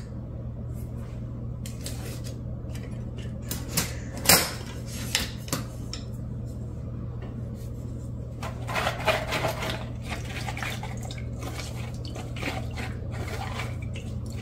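Wooden spoon scraping and pressing blended puree through a metal mesh strainer into a bowl, after a few sharp knocks of utensils against the strainer and bowl, over a steady low hum.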